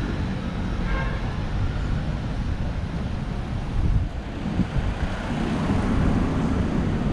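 City street traffic: a steady noise of vehicles on the road, mostly low in pitch.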